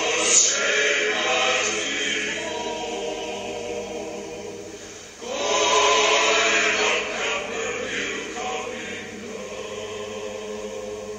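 Background choral music: a choir singing long held chords, dying down and then swelling up again about five seconds in.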